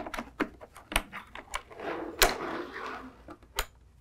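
Hard plastic carrying case being unlatched and opened: a run of plastic clicks and knocks from the latches and lid, with a louder snap about two seconds in and a rustle of the contents as the lid swings open.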